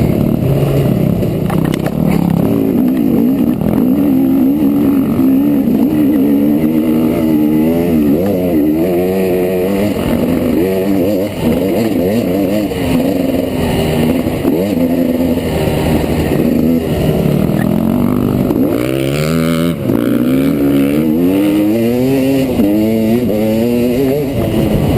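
Trail bike engine working on a dirt trail, its pitch rising and falling again and again as the throttle is opened and closed through gear changes, over a steady rush of noise.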